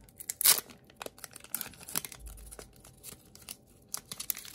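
A Pokémon TCG Rebel Clash booster pack's foil wrapper being torn open: one loud rip about half a second in, then scattered crinkling as the wrapper is pulled apart.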